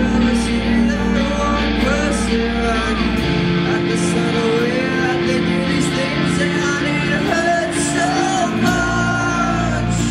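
Live post-hardcore band playing loud, with a singer singing into a microphone over electric guitars. The deep bass drops out about three seconds in and comes back near the end.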